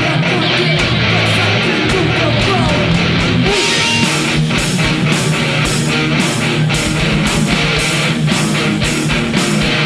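Live rock band playing loud electric guitars. About four seconds in, drums and cymbals come in on a steady beat of about two hits a second.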